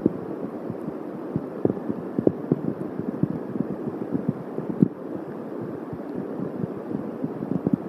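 Rain during a thunderstorm, drops tapping irregularly and densely on the nest-cam microphone, with now and then a louder single tap.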